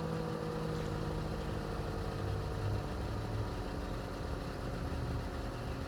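SD-10 outdoor warning siren winding down at the end of its test, its tone sinking slowly and steadily, over a low engine-like rumble.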